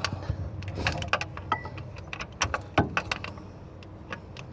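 Irregular sharp metallic clicks and clinks of a spanner working a fitting on the excavator's fuel system as it is tightened.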